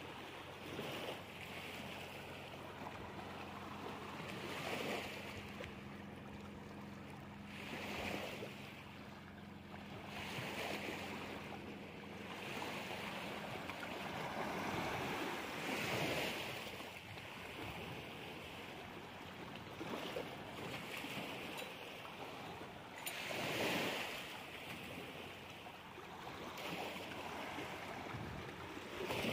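Small river waves washing in over rocks at the edge of a muddy bank, swelling and falling back every few seconds. A faint steady low hum runs underneath and fades out about halfway.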